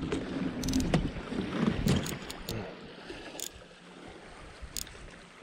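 Handling noise from reeling in a hooked bass from a kayak: a baitcasting reel being cranked, with scattered sharp clicks and knocks over water and wind noise. It is louder for the first couple of seconds, then quieter.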